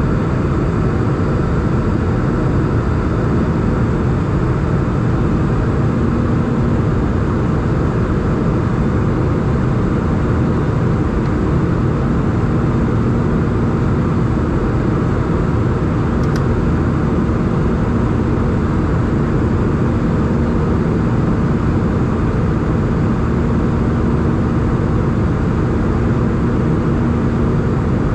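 Steady in-flight cabin noise of an Airbus A320, heard from inside the cabin: a constant roar of engine and rushing air with a faint steady hum.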